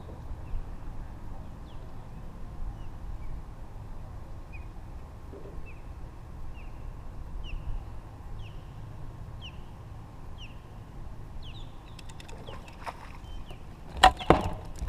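A bird calling over and over, a short falling chirp about once a second, over a low outdoor rumble. Near the end come a few sharp knocks.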